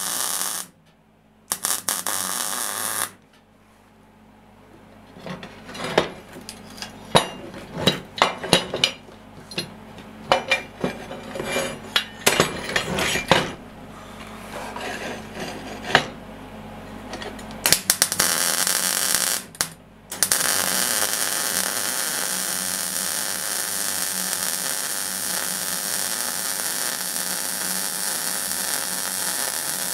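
MIG welding arc, a steady crackling hiss laid down in several runs: a short burst at the start, another about two seconds in, one near eighteen seconds, and a long unbroken bead from about twenty seconds in. Between the runs come scattered clicks and knocks of the welding gun and steel parts being handled on the bench.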